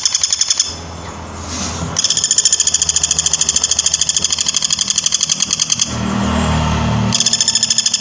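Woodpecker giving a loud, fast rattling call of about eight or nine sharp notes a second, in long runs. It breaks off about a second in and again near the end, and a low rumble fills each pause.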